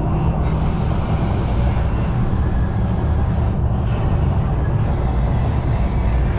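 Steady low rumble of street traffic noise with no distinct events.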